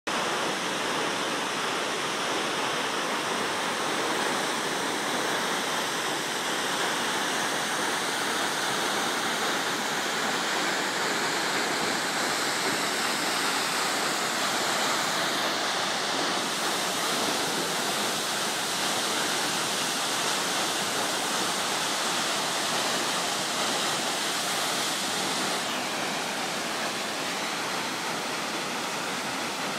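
Waterfall: a steady, continuous rush of falling water that eases slightly about 26 seconds in.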